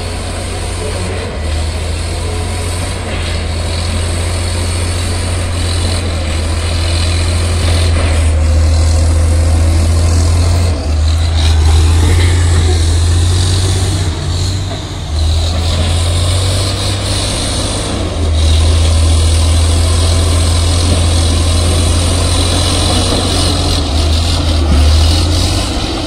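Crawler bulldozer's diesel engine running hard as the dozer pushes soil and brush with its blade: a steady low drone that swells and dips a few times as the load changes.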